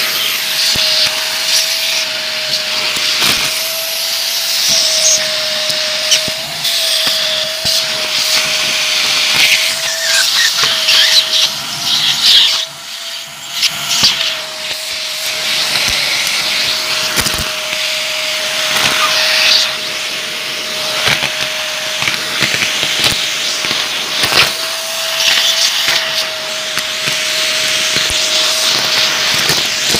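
Vacuum cleaner running with a steady whine, its nozzle sucking up crunchy foil confetti and plastic beads from a hardwood floor, giving continual crackling, rattling and clicks. About halfway through the sound briefly drops, then picks up again.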